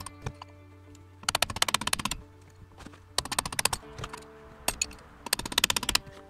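Background music with steady held notes, over three bursts of rapid metallic clicking, each under a second long, as a gear puller is fitted and tightened on a rear brake drum.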